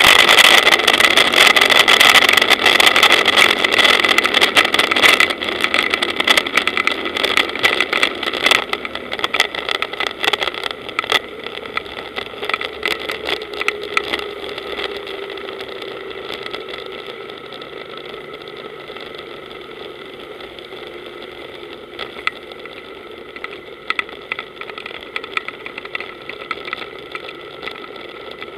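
Powerboat engine running with heavy wind and water rush at first, which dies away over the first several seconds as the boat comes off speed. It settles to a quieter, steady idle, its pitch sliding down a little about halfway through.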